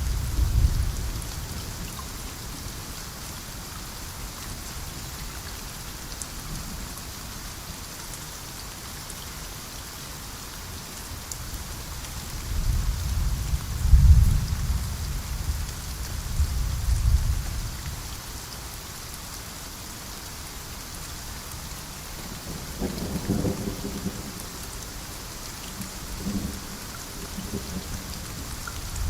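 Steady rain hissing, with several rolls of low thunder rumbling through it. The heaviest roll comes about halfway through, and shorter rumbles follow near the end.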